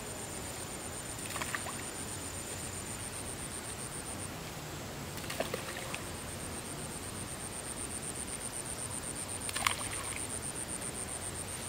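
A hooked fish thrashing at the water's surface, splashing three times, the loudest near the end. Behind it runs a steady, high, pulsing insect buzz.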